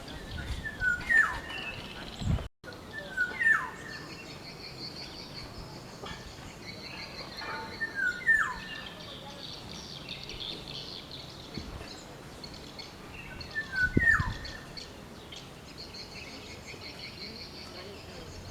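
Black-naped oriole calling: a short whistled phrase ending in a falling slur, given four times several seconds apart. A steady high-pitched background sound runs under it.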